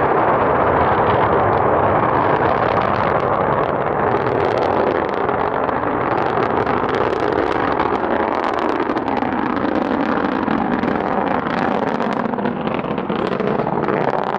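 Roar of a Soyuz-FG rocket's engines climbing away after liftoff: a steady rumbling noise with a ragged crackle running through it, easing slightly about a third of the way in.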